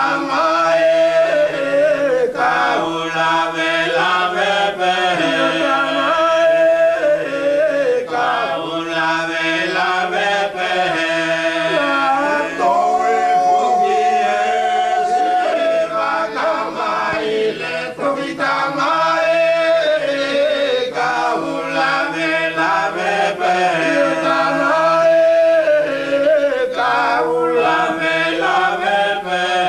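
Voices singing a Wallisian (faka'uvea) chant together in continuous phrases, some lower notes held steady under the moving melody.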